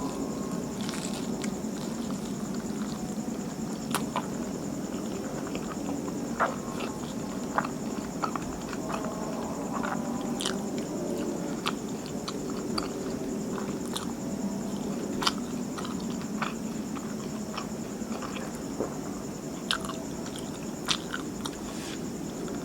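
Close-miked chewing and biting of martabak manis (thick, soft Indonesian sweet pancake), with irregular short mouth clicks and smacks. A steady background hum runs underneath.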